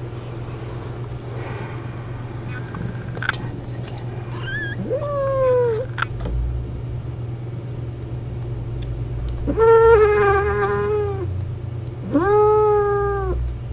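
Mother cat in labour yowling: three drawn-out, pitched cries, the last two longer and louder, over a steady low hum.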